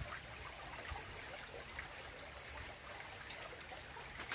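A small, slow-flowing clear stream trickling, low and steady.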